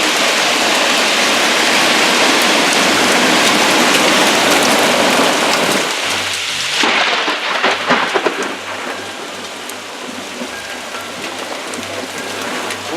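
Heavy rain pouring hard in a thunderstorm, with low thunder rumbling underneath. About seven seconds in, a cluster of sharp loud cracks comes, and after it the downpour sounds lighter.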